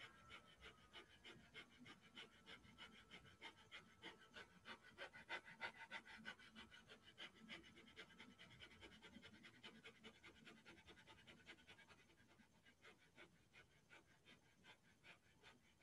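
Breath of Fire: a man's rapid, rhythmic forced exhalations through the nose with the mouth closed, driven by the abdominal muscles, about three a second. Faint, growing quieter near the end.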